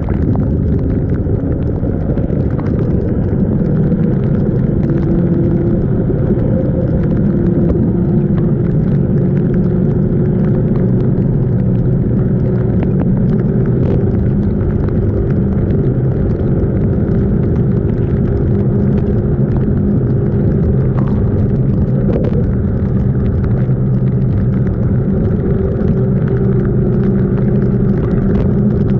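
Yamaha NMAX 155 scooter's single-cylinder engine running at a steady cruise while riding, its even engine note over a constant rushing noise.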